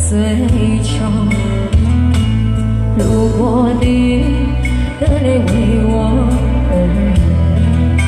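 A Mandarin pop ballad played loud through a PA: a karaoke backing track with a steady bass beat and a woman singing live into a microphone, her held notes wavering about halfway through.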